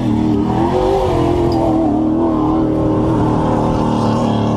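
Off-road truck's engine running steadily, its pitch wavering a little up and down.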